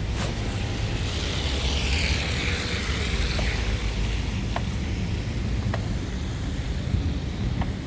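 Wind rumbling on the microphone and tyre noise while riding a bicycle on a snowy road, with a hiss that swells and fades a second or two in and a few light clicks.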